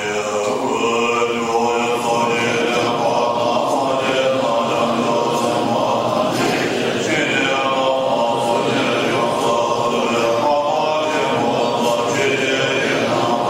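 Tibetan Buddhist prayer chanting: a slow, continuous, melodic recitation.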